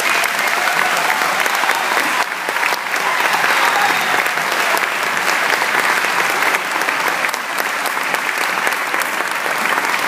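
Audience applauding: steady, dense clapping.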